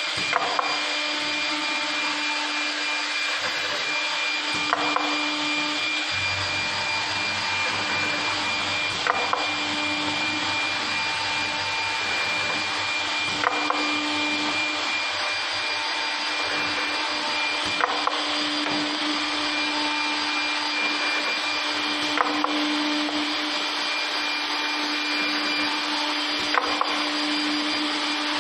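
Cardboard hole-drilling machine running with a steady whir. A quick double clack comes regularly about every four and a half seconds with each machine cycle.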